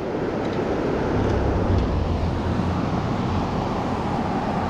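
Steady rush of fast-flowing river water, with a low rumble of wind on the microphone for a second or so starting about a second in.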